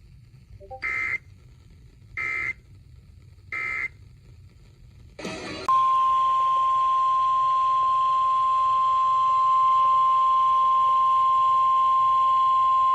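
Three short bursts of digital data tones from an Emergency Alert System weather radio broadcast: the SAME end-of-message code that closes a warning. About five seconds in there is one more short burst, then a loud steady single-pitch alert tone begins: the NOAA Weather Radio 1050 Hz warning alarm tone that precedes the next warning.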